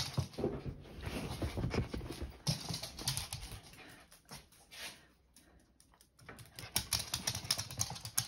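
Dogs moving about quickly on a hard floor, their claws clicking and pattering in quick runs. The clicks ease off about four seconds in and pick up again near the end.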